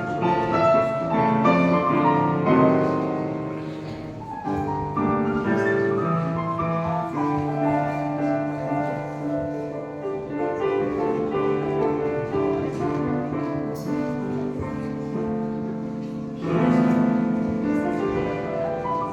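Solo piano playing a slow passage, with a low bass note held under quieter melody notes, then a louder chord struck about three-quarters of the way through and left ringing.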